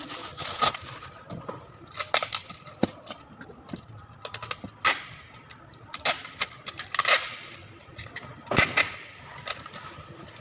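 Brown packing tape pulled off a handheld tape dispenser in several short noisy strips, used to tape shut the caps of plastic bottles, mixed with sharp clicks and knocks of the dispenser and bottles being handled and set down.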